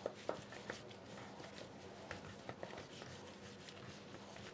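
Faint handling of raw chicken wings dusted with cornstarch, rubbed by a gloved hand in a stainless steel pan: soft squishing with scattered small clicks and taps.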